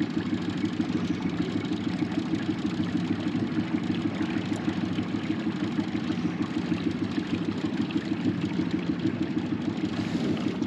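Boat's outboard motor running steadily at low speed, a constant low hum with a quick, even pulsing.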